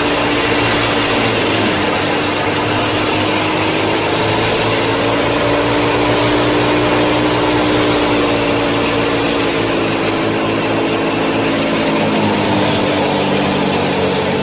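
Small electric motor of a home-made miniature thresher or tractor model running with a steady whine. The pitch drifts up a little and then drops near the end.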